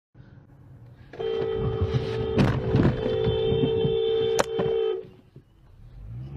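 Car horn held down for nearly four seconds, starting about a second in and cutting off suddenly. It is a steady two-tone blare, with two sharp clicks partway through, over low road rumble.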